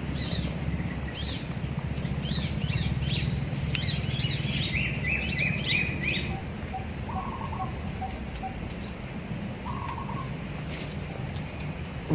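Wild birds calling: a busy stretch of high chirps and trills in the first six seconds, then quick runs of short repeated notes that come back a few times, over a steady low hum.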